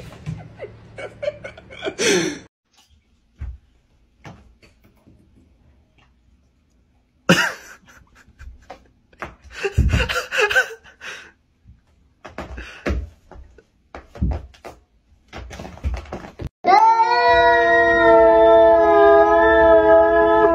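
A scatter of short knocks and scuffs, then, from about three-quarters of the way in, a silver tabby cat yowling at another cat in one long, loud, wavering wail.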